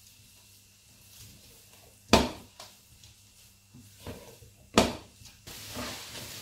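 Wooden spatula knocking against a stainless steel pot as shredded abacha is stirred, with two sharp knocks louder than the rest. Near the end a steady sizzle starts: the first sound of the abacha warming up on high heat.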